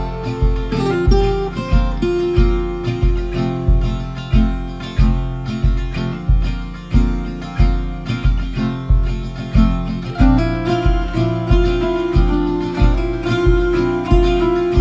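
Background music: strummed acoustic guitar over a steady beat of about two pulses a second.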